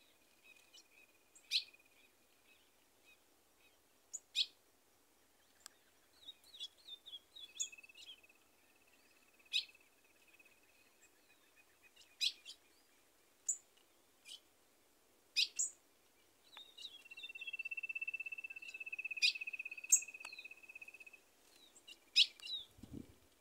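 Birds calling: many sharp, short chip notes, and three times a long, even, finely pulsed trill held on one pitch for several seconds. A brief low thump near the end.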